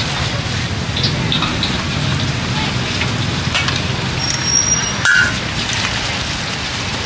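Fish cakes deep-frying in a pot of hot oil, a steady sizzle, with a short high-pitched beep and a brief knock just past the middle.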